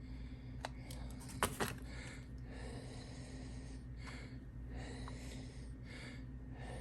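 Close handling noises from hands working at a hobby bench: soft rubbing and rustling about once a second, with a few sharp clicks about a second and a half in, over a steady low electrical hum.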